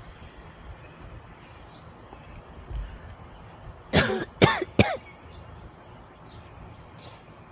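A small dog barks three times in quick succession, short yaps with a rising-then-falling pitch about four seconds in, barking at a neighbor.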